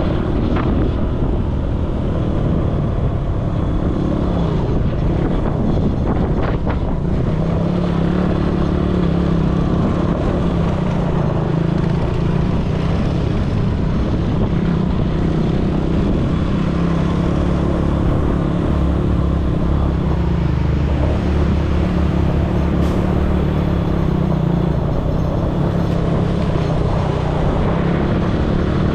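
ATV engine running steadily under way, its pitch rising and falling a little, with wind buffeting the microphone.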